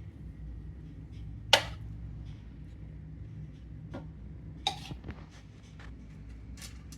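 Sharp clicks and knocks of kitchen handling while an air fryer basket is loaded: one loud knock about a second and a half in, a lighter one a little before five seconds, over a low steady hum.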